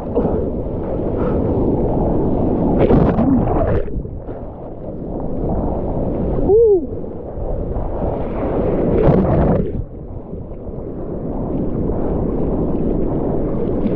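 Whitewater foam from a broken ocean wave rushing and sloshing around a camera held right at the water surface, with wind on the microphone. A short gurgle about halfway through as water washes over the lens.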